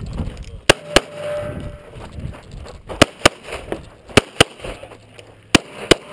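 9mm EAA/Tanfoglio Witness Match pistol firing close to the microphone: eight sharp shots in four quick pairs, the two shots of each pair a fraction of a second apart, with a second or more between pairs.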